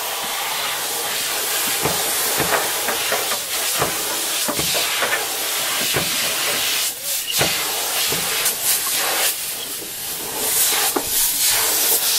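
Compressed air hissing from a blow gun, blowing out an excavator's air filter, a steady rush with irregular short surges and brief breaks.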